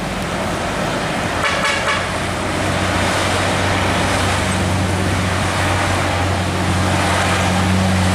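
Container truck's diesel engine running and growing louder as the truck approaches through a bend, over steady road traffic noise. A brief horn toot sounds about a second and a half in.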